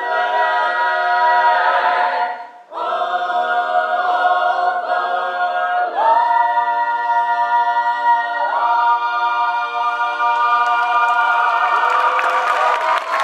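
A cappella vocal ensemble singing long held chords in close harmony, with a short breath pause about two and a half seconds in. Applause starts to break in near the end as the final chord is held.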